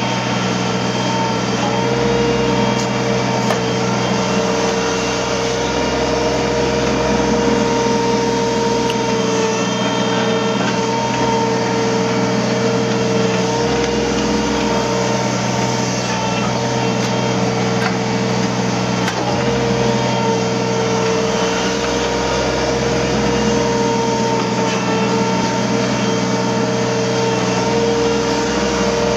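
Hydraulic excavator running under work: a steady diesel engine hum with a high whine from the hydraulics, the low engine note swelling and easing every few seconds.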